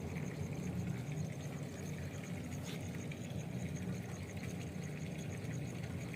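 Faint outdoor ambience: an insect trilling in a thin, high, evenly pulsing chirp, over a steady low rumble.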